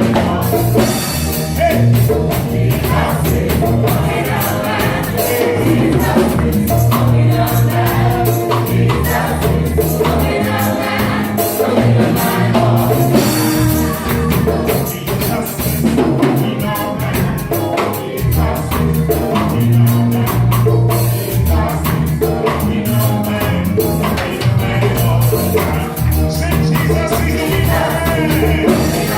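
Gospel praise-and-worship music with a drum kit, deep bass notes and singing, played at a steady loud level.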